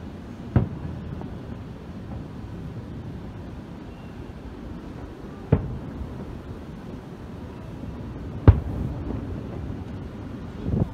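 Aerial fireworks shells bursting: three sharp booms a few seconds apart, the third the loudest, and more near the end, over a steady low rumble.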